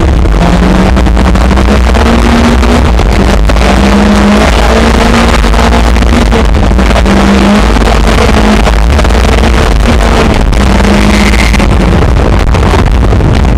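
Lexus IS200 rally car at speed on a snow-covered gravel stage heard from inside: the engine pulling hard over heavy road and wind rumble, loud enough to overload the in-car camera's microphone.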